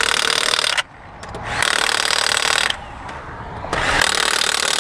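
Impact wrench running lug nuts in three bursts of about a second each, with a rapid hammering rattle and short pauses between: the wheel's lug nuts being run down to finish the tire change.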